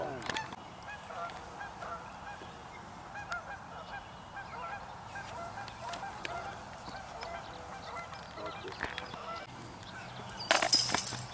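Metal chains of a disc golf basket jangling loudly for about a second near the end, with a bright ringing that trails off. Waterbirds call repeatedly in short calls throughout.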